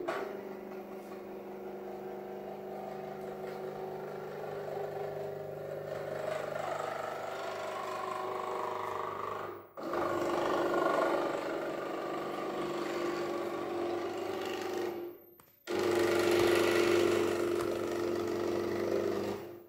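Motors of a pan-tilt antenna tracker whining steadily as they turn the Yagi antenna to follow a predicted path. The whine breaks off briefly about ten seconds in and again around fifteen seconds.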